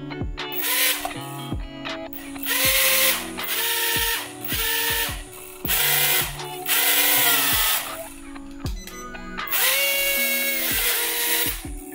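The JJRC H36F toy drone's small electric propeller motors whine in repeated bursts, each rising in pitch as the motors spin up, as the drone pushes itself along in its car mode.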